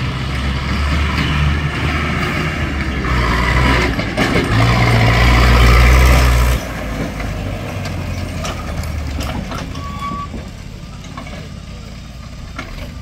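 Tractor engine running hard, loud and deep, then dropping off sharply about six and a half seconds in to a quieter, steady running.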